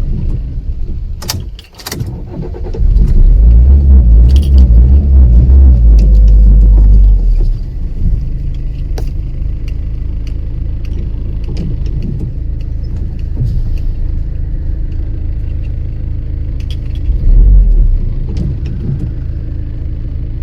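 Car engine dipping almost to a stall, then revved hard for about four seconds with the gas pedal pumped. It settles to a steady idle and is revved briefly again near the end, a car that will not hold an idle on its own. Keys on the keychain jangle throughout.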